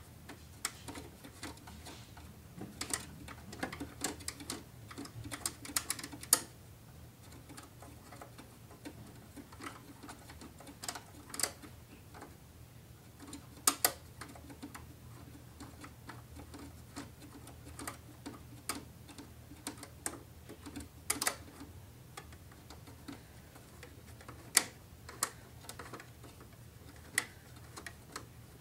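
Irregular small clicks and metal taps from a hand working at the old graphics card's mounting bracket inside a 2008 Mac Pro tower, with a few sharper clicks standing out, over a low steady hum.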